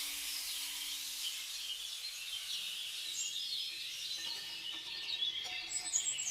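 Forest ambience: a steady high hiss with scattered bird chirps, and a sharper, higher bird call near the end.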